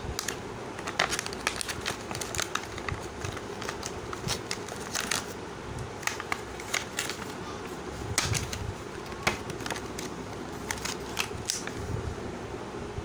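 Clear plastic blister packaging and its printed card backing being pulled apart by hand, crackling and clicking in irregular sharp bursts throughout.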